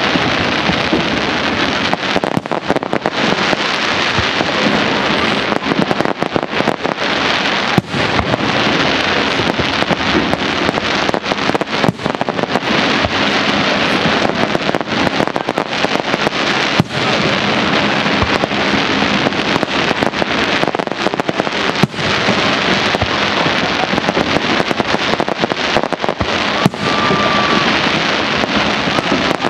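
Aerial firework shells bursting in a display: a steady dense crackling and popping, with sharper bangs scattered throughout.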